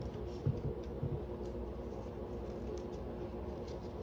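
Trading cards being handled: a few faint soft taps and slides as cards are picked up and laid on an ottoman top, over a steady low room hum.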